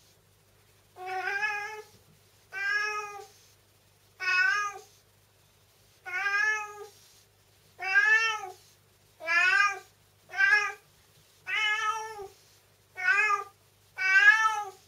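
Domestic cat meowing over and over, about ten drawn-out meows starting about a second in, each rising then falling in pitch, coming roughly one every second and a half.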